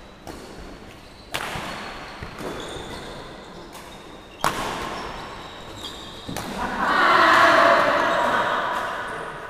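Badminton rally: racket strings smacking the shuttlecock, with two sharp hits about a second and a half and four and a half seconds in that ring on in the hall, and short squeaks of court shoes on the wooden floor. Near the end a louder swell of noise rises and fades over about two seconds.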